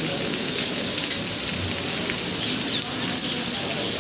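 Heavy rain falling steadily, a dense even hiss of rain on hard surfaces.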